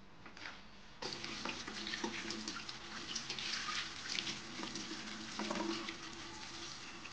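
Tap water running into a stainless steel bowl of water while hands rub and rinse raw lamb, with uneven splashing and sloshing. It starts about a second in.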